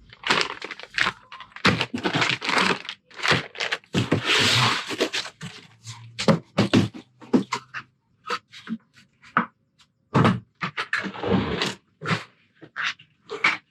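Unboxed dolly parts and caster wheels being handled: an irregular string of knocks, clunks and scrapes, with a longer rustling hiss about four seconds in.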